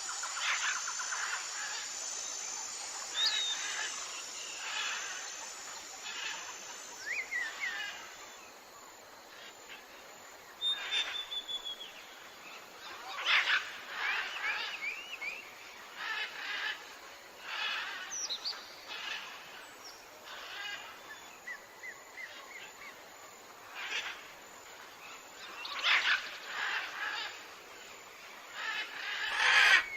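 Wild birds calling and chirping, with many short calls and whistled notes scattered through. A high pulsing insect trill runs beneath for the first several seconds.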